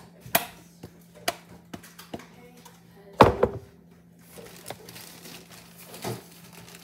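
Kitchen clean-up handling noise: a string of light taps and knocks as items are picked up and set down on a counter, with a louder double knock about three seconds in, then quieter scattered handling sounds.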